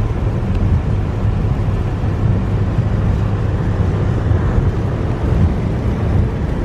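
Steady low rumble of a car driving on a rain-soaked road, heard from inside the cabin.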